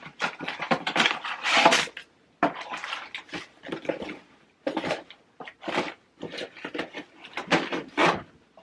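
Irregular clatter and rustle of packaged food items being picked up, shuffled and set down by hand, in quick bunches of knocks with short pauses between.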